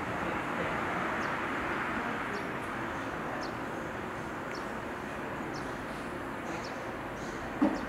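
Small birds chirping in short high calls about once a second over a steady background rush, with one short knock near the end.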